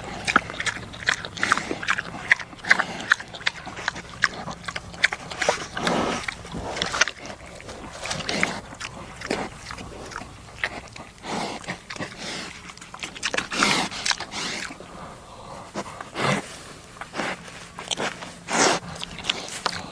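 Pigs feeding, with many quick smacking chomps and grunts every few seconds.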